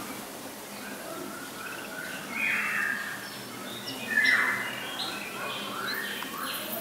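Lesser whistling ducks and their ducklings calling: a run of short chirps and whistles, with two louder calls about two and a half and four seconds in.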